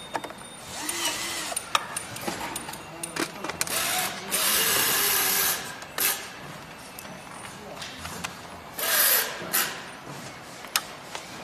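Cordless drill-driver working the screws of an electric scooter's battery compartment, in short runs, among clicks and clatter of screws and the plastic deck panel being handled. The longest run lasts about a second and a half near the middle, with a shorter one about three seconds later.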